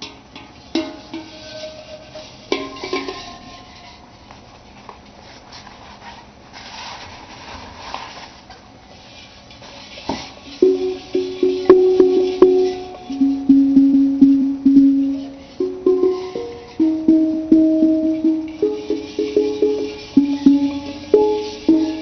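Steel pan notes ringing. A few quiet, scattered strikes come first, then from about ten seconds in a louder, busier run of struck and rolled notes.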